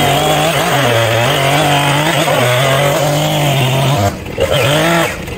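Two-stroke chainsaw running at high revs while cutting into a log, its pitch wavering under load. About four seconds in the revs drop briefly, climb again, then fall away near the end.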